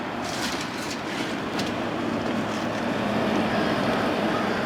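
General Electric 6000 BTU air conditioner running with its compressor on: a steady rush of fan air over a low hum, the unit working and cooling.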